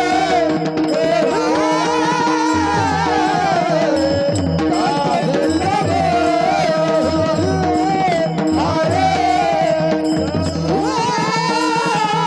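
A devotional singer performs a Marathi abhang in long, ornamented melodic phrases over a steady drone, with drum accompaniment.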